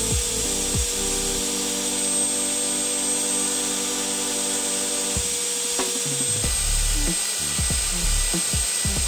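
Benchtop belt sander running while a knife blade is held against the moving abrasive belt to sharpen its edge, under background music with a beat.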